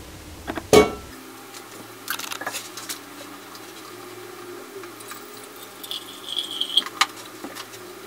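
Stainless-steel parts of an electric moka pot clanking and clinking as they are handled on a table, with one loud metal clang about a second in. After that the handling sounds are sped up, with light clinks and water being poured into the pot's base.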